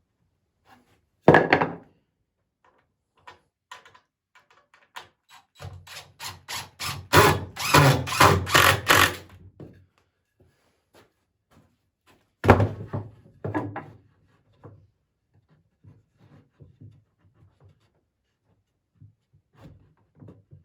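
Dry poplar boards knocked and thunked as they are handled during woodworking assembly. There are two loud sharp thunks, about a second in and about twelve seconds in. Between them comes a few seconds of rapid knocking and clattering over a low hum, and lighter knocks follow.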